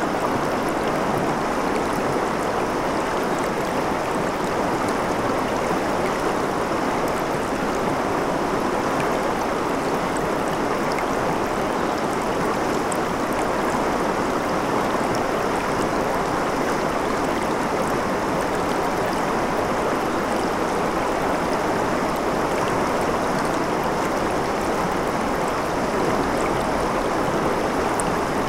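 Shallow river water running over and between rocks in a riffle: a steady, unbroken rush of flowing water.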